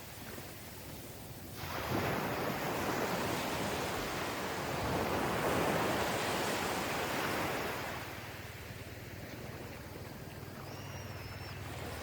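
Small ocean waves washing onto a beach. A wave breaks about two seconds in, and its rush of surf runs for several seconds before easing back to a softer wash.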